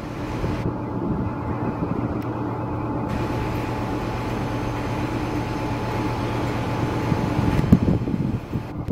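Steady mechanical hum of a train, with a low droning tone running under it.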